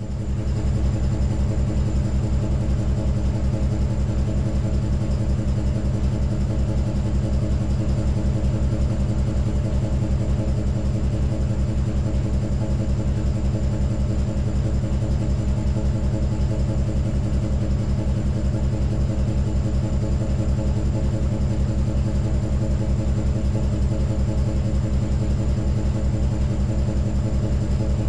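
A steady mechanical drone, like a running engine or heavy machine, with a fast, even pulse in its low hum. It fades in at the start and then holds level.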